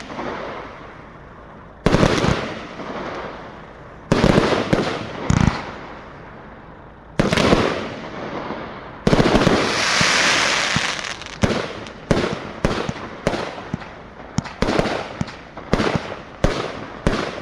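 Pyro Specials 'King of the Sky' firework cake firing: single shots burst with loud bangs about two seconds apart, then one longer hissing burst midway, followed by a quick run of bangs, roughly two a second, toward the end.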